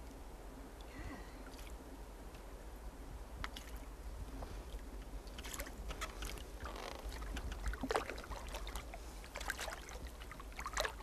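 Canoe paddle working the water: irregular splashes and dripping that grow busier over the second half, over a low steady rumble.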